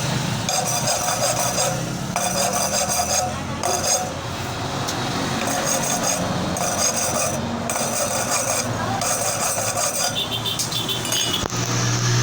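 Hand file rasping on a metal part in repeated strokes, roughly one stroke a second with short breaks between them.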